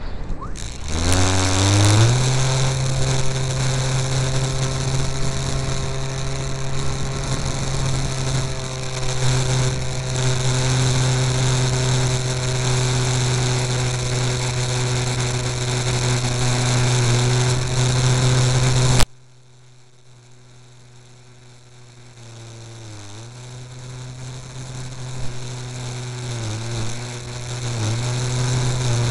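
A model airplane's motor and propeller, heard from a camera on board. About a second in it spools up to a steady droning pitch for the takeoff and climb. About two-thirds of the way through it drops suddenly to a faint, low-throttle drone, which then slowly grows louder again near the end.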